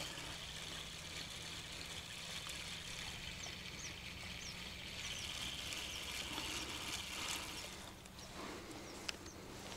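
Quiet outdoor ambience: a steady hiss with a low hum under it, a few short high bird chirps about three to four seconds in, and a couple of faint clicks near the end.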